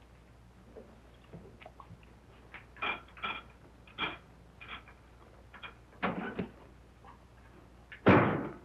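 Quiet room with a few scattered small clicks and knocks from objects being handled, then one louder knock about eight seconds in.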